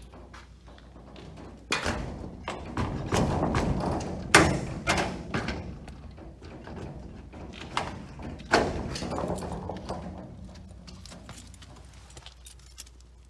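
Corrugated metal roll-up door rattling and clanking as it is handled at its bottom latch, with sharp metallic bangs about two, four and a half and eight and a half seconds in, and clattering between them that dies down toward the end.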